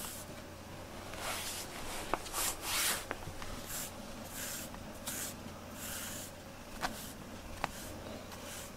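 A brush swishing through a cat's fur in short strokes, roughly one a second, with a few small sharp clicks in between.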